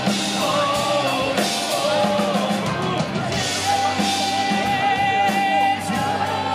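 Live rock band playing: a singer over electric guitar, bass guitar and drum kit with cymbals. A long note is held through the second half.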